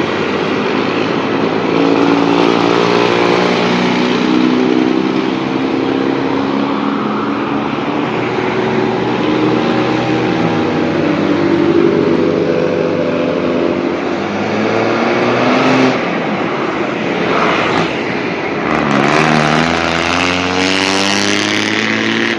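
Diesel engine of a Nissan SP210 bus running through a 'ngorok' (snoring) modified exhaust, pulling with a deep, gravelly note whose pitch drifts up and down. Near the end the note drops, then rises quickly as it revs up again.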